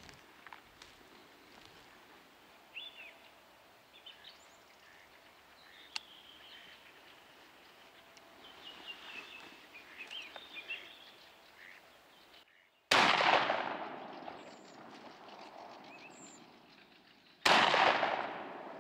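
Faint birdsong over quiet outdoor ambience, then two shotgun shots about four and a half seconds apart, each trailing off slowly; they are fired at a drake.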